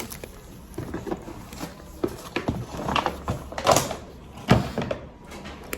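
Takeaway food containers and packaging being handled: scattered rustles and several sharp knocks, busiest from about halfway through.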